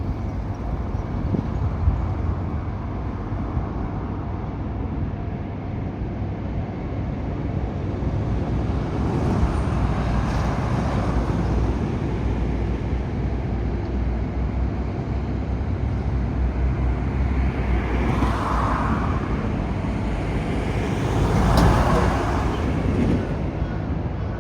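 Steady road-traffic rumble, with a few vehicles passing that rise and fade as slow swells, the two loudest in the second half.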